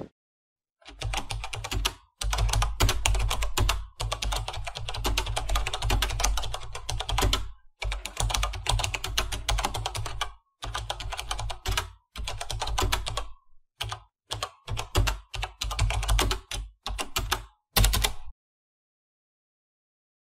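Computer keyboard typing sound effect: rapid key clicks in bursts of a few seconds with short silent gaps, the bursts growing shorter before stopping near the end.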